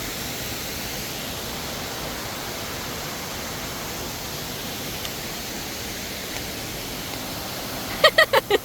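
Steady rushing water noise, as from rain or running water in a tropical garden. Near the end a quick series of short pitched chirps, about eight a second, starts loud and fades away.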